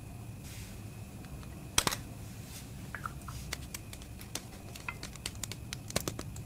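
Lipstick tubes being uncapped and handled: a sharp click about two seconds in, then a run of small clicks and ticks as the cases are opened and the lipsticks twisted up. A steady low hum sits underneath.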